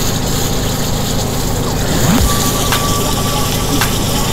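Red curry paste frying and sizzling in coconut cream in a wok over high heat, stirred with a spatula, with a few faint clicks about a second apart and a low steady hum under it.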